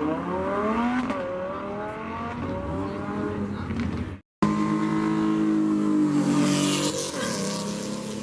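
Car engines accelerating, their pitch climbing as they rev up. After a brief cut, an engine holds a steady note, with a rush of noise about six to seven seconds in.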